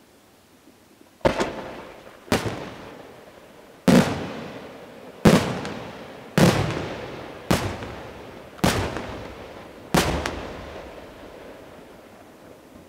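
Aerial firework shells bursting overhead: eight sharp bangs spaced one to one and a half seconds apart, each trailing off in a rolling echo.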